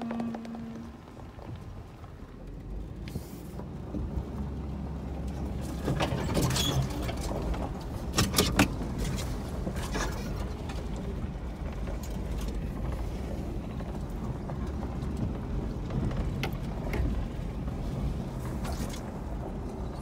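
Four-wheel-drive vehicle driving slowly along a rough dirt trail, heard from inside: a low steady engine drone that strengthens a few seconds in, with knocks and rattles as it jolts over bumps, the loudest cluster a little after eight seconds in.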